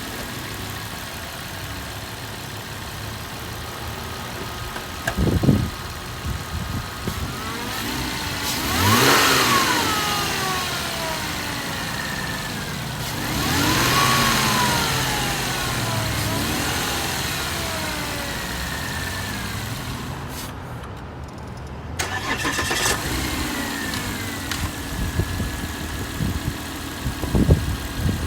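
Volvo XC90 engine idling, revved up twice with the pitch rising and falling back each time, with a couple of short knocks.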